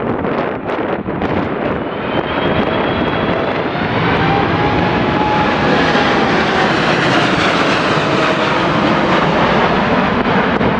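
Jet airliner's engines passing, swelling to a loud rush about halfway through and easing off, with a high whine that slowly falls in pitch. Gusty wind buffets the microphone at the start.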